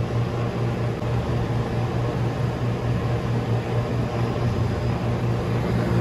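6,000 kcal/h Metalcalor industrial water chiller running under a test heat load: a steady low hum over an even rushing noise.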